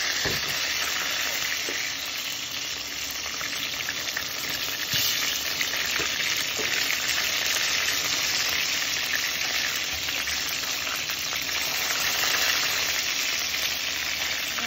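Chicken drumsticks sizzling as they shallow-fry in hot oil in a nonstick pan, a steady hiss with a few light knocks.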